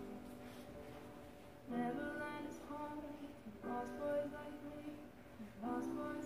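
Recorded song playing: a woman singing a slow ballad, in sung phrases that start about every two seconds.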